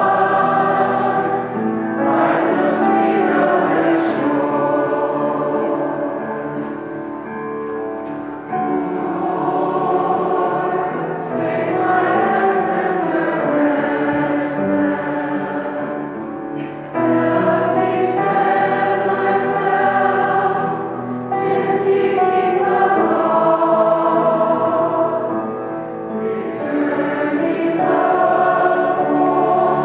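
Church choir and congregation singing a processional hymn together, many voices in phrases a few seconds long with short breaks between the lines.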